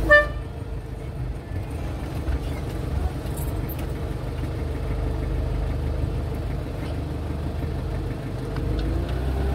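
Classic Volkswagen camper van's engine running at low speed, heard from inside the cab as the van creeps forward. A short beep sounds right at the start.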